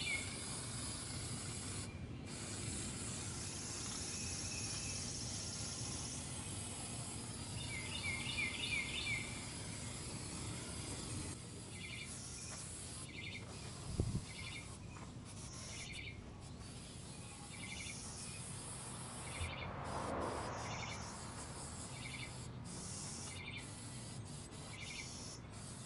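Aerosol primer spray can hissing in long spurts, with short breaks in the spray through the second half. Birds chirp in the background, and there is one sharp tap about halfway through.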